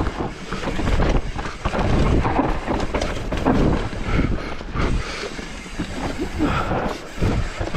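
Wind rumbling on the camera microphone as a mountain bike rolls down a dirt trail, with repeated knocks and rattles from the bike over rough ground.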